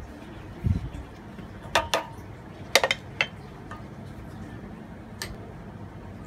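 A wooden spatula knocking and clinking against a stainless steel pot as it is tapped and set down on the rim: two quick clusters of sharp knocks about a second apart, then one more light clink later.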